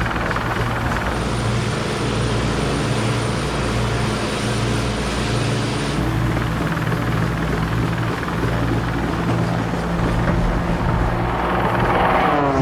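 Propeller aircraft engine running steadily, with a rising sweep near the end.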